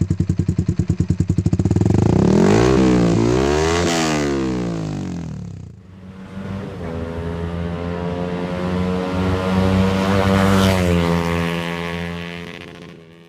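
Yamaha R15 V3's single-cylinder engine running through an aftermarket D'Crow Blaxton GP carbon exhaust. It starts with a fast, even pulsing, then the pitch swings up and down a few times. After a brief dip it settles into a steadier run that rises a little and then falls away, fading out at the end.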